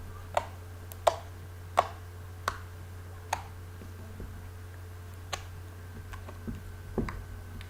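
Homemade slime made with Persil laundry detergent being squeezed and worked by hand, letting out sharp little popping clicks as trapped air escapes. The clicks come about once a second at first, then more sparsely.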